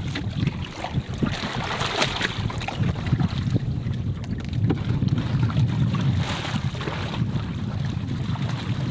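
Small outboard motor running steadily as a dinghy moves across the water, with wind rushing over the microphone.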